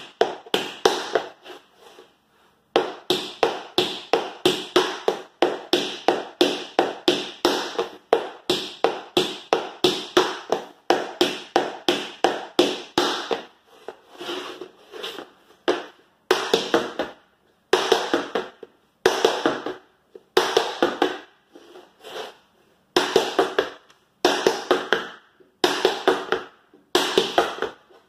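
Metal taps on tap shoes striking a wooden floor in quick rhythmic runs, first as triple paradiddles (dig, spank three times, then step, heel). Past halfway the taps come in short clusters with brief pauses between them.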